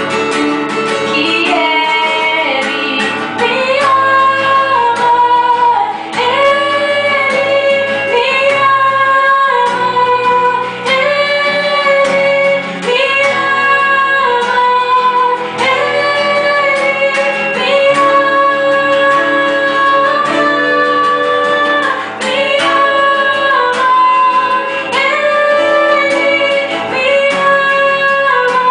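A woman singing a worship song in long held phrases over guitar accompaniment.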